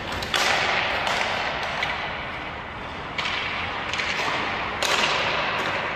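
Hockey shots on an indoor rink: three sharp cracks of stick and puck, about a third of a second, three seconds and nearly five seconds in, each ringing on in the echo of the empty arena, with lighter taps of pucks and sticks between.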